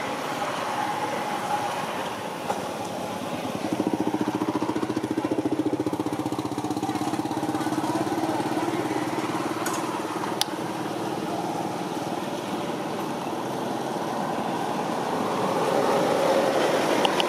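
A motor running steadily, a low hum with a fast even pulse that grows louder from about four seconds in, with a sharp click about ten seconds in.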